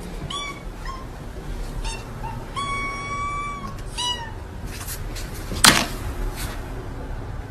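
A cat meowing several times: short falling calls and one long, drawn-out, level call. A single sharp knock follows a little before the six-second mark.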